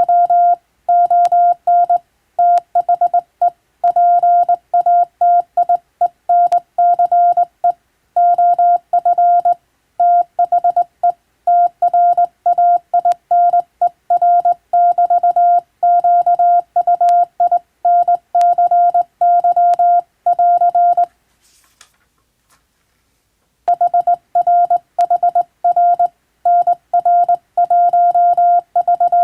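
Hand-keyed Morse code: a single steady mid-pitched tone switched on and off in dots and dashes, sending English-language telegram practice text. It stops for about two and a half seconds two-thirds of the way through, with a faint click in the gap, then resumes.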